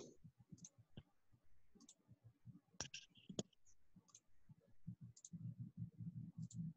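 Near silence with faint, sharp clicks scattered about once a second, and a faint low rumble near the end.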